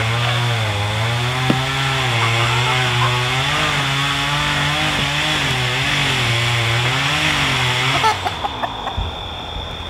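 A two-stroke chainsaw running at cutting speed, its pitch dipping and rising again and again as it cuts, then cutting off suddenly about eight seconds in, followed by a few short knocks.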